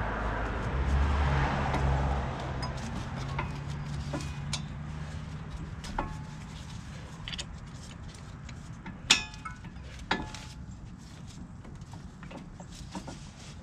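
A vehicle's engine hum fades over the first couple of seconds. After that come scattered sharp metallic clinks and knocks of hand tools on metal, the loudest about nine seconds in and another a second later.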